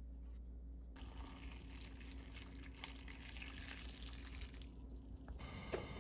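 Homemade broth poured from a glass jug into a pot packed with layered cabbage, beef and mushrooms. The liquid runs in a steady stream for about four seconds, starting about a second in and stopping near the end.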